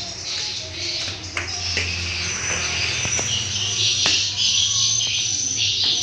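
Dense, high twittering chorus of edible-nest swiftlets coming from the swiftlet house, growing louder about two seconds in, with a few light knocks of footsteps on the stairs.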